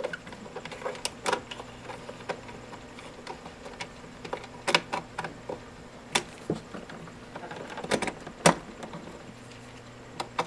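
Irregular clicks and light knocks as heavy cables with crimped ring terminals and a screwdriver are handled at a charge controller's terminal block, the sharpest about eight and a half seconds in, over a steady low hum.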